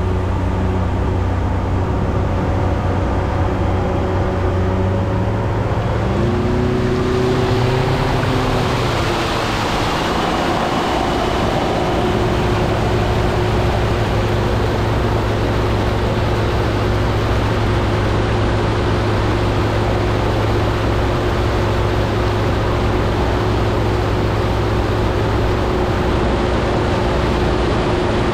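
Outboard boat engines running at speed over water rushing past the hull and wake. The engine pitch rises about six to eight seconds in, then holds steady.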